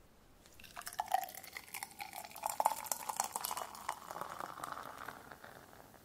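Lager beer poured from a bottle into a glass: gurgling and fizzing, with a pitch that rises slowly as the glass fills, over a crackle of bubbles.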